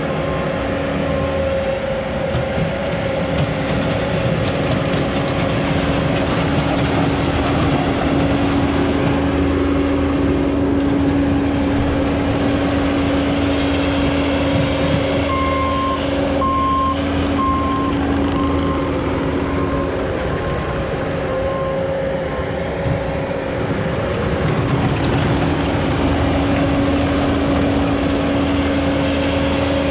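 Engine of a heavy vehicle or machine running steadily, with its reversing alarm beeping in runs: briefly at the start, for several seconds about halfway through, and again near the end.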